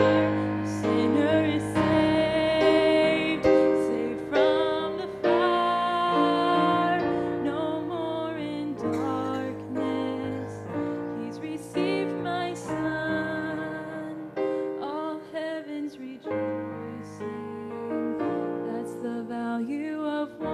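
A woman sings a slow gospel song and accompanies herself on an electric keyboard, holding sustained piano chords under her voice.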